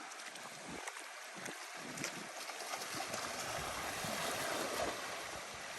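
Faint, steady wash of water with some wind, no distinct splashes or knocks.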